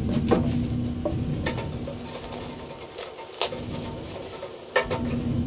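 Scattered clinks and knocks of metal gas-grill parts being handled, with plastic bubble-wrap packaging rustling as the propane regulator and hose are unwrapped. A steady low hum runs underneath.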